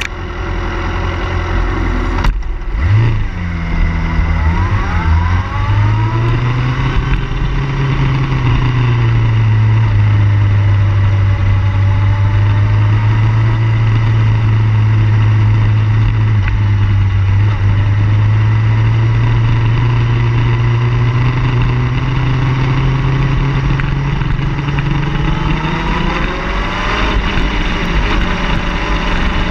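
Car engine under way: it accelerates, rising in pitch over the first few seconds, then holds a steady drone at cruising speed. Near the end the pitch rises and falls again.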